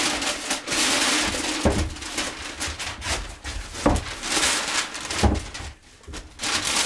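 Paper rustling and crinkling as a sheet is pulled out from under a clamped wooden glue-up, in several stretches, with three dull knocks against the bench or clamps.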